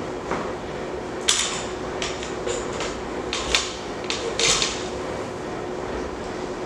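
A series of sharp metallic clanks and clinks, a few in quick succession, over a steady background rumble.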